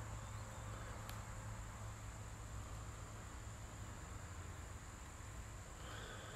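Quiet, steady background: a constant high-pitched drone over a low hum, with a single faint click about a second in.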